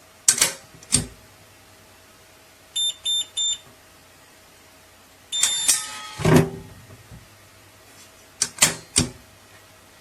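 Electronic pistol safe being worked: two sharp clicks, then three short identical high beeps, then a longer beep running into a few falling tones with a heavy clunk of the lock or lid, and a few more sharp clicks near the end.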